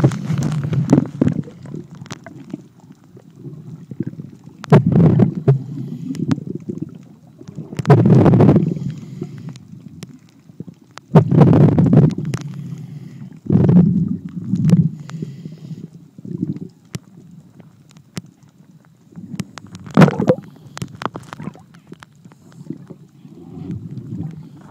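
Underwater gurgling: loud bursts of bubbles and water rushing every few seconds, with a low rumble between them, heard through a submerged camera.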